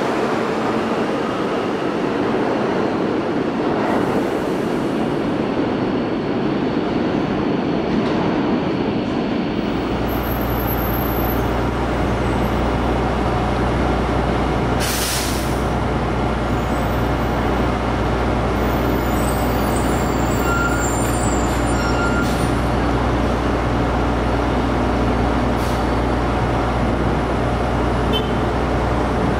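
A New York City subway train running along an underground station platform for about the first ten seconds. Then an MTA Orion V city bus idles at a stop with a steady low engine hum, and a short hiss of air comes about five seconds after the hum begins.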